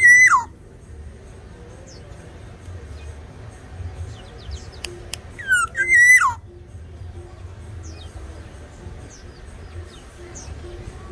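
Black-naped oriole (Sumbawa kepodang) giving two loud whistled calls, one at the very start and one about six seconds in. Each slides up, holds a high note, then drops sharply. Faint chirps of other small birds come between the calls.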